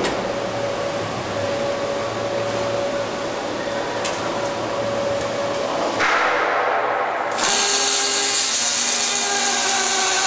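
KUKA welding robots and their positioner move with a steady electric whine. About seven seconds in, a robotic arc welding torch strikes its arc, and a louder steady hiss with a buzz carries on to the end.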